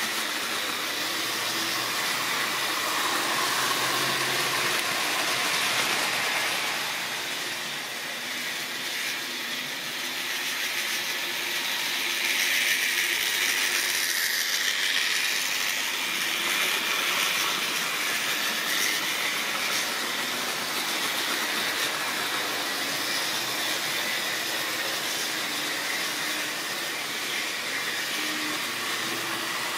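Model trains running on track: a steady whir of small electric locomotive motors and wheels rolling on the rails. It swells louder about halfway through as a long train of tank wagons runs close by.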